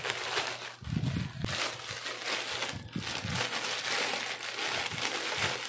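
Clear plastic bag crinkling and rustling as it is handled, in an irregular crackle.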